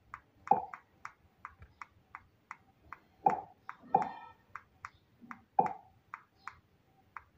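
A run of short, light clicks about three a second, with a few louder clicks among them, from navigating a smart TV's settings menu with the remote.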